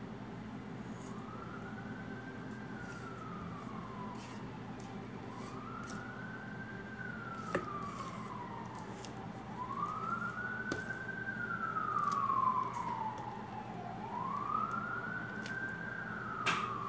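A siren wailing, rising and falling in pitch in slow cycles about four seconds long and growing louder toward the middle, over a steady low hum. A few light clicks and clinks are heard, the loudest near the end.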